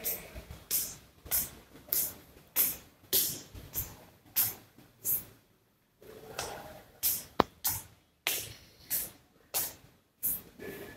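Footsteps on stone stairs, about one and a half steps a second, with two short pauses and one sharp click about seven seconds in.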